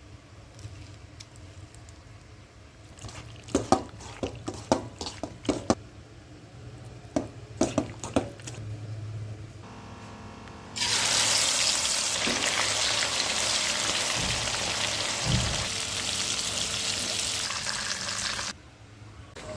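Kitchen work sounds. First comes a run of sharp clicks and knocks of utensils or cookware, then a loud, steady hiss lasting about eight seconds that cuts off suddenly.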